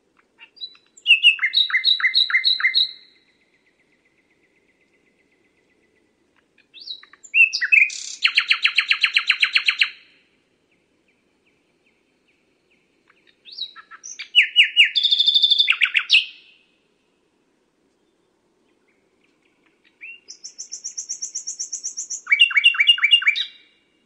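Common nightingale singing: four separate song phrases a few seconds apart, each opening with a few soft notes and running into fast, loud repeated notes.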